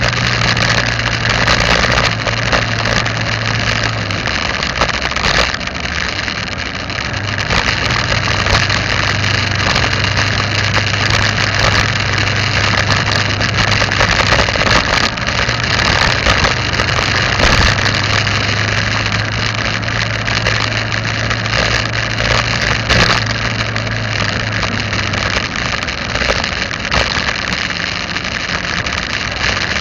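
Vehicle engine running while driving, with a low hum whose note shifts a few times and fades out near the end, under steady wind and road noise.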